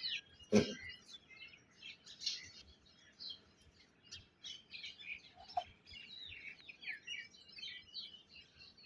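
Small birds chirping continuously, many short high chirps overlapping one another. A single sharp knock sounds about half a second in.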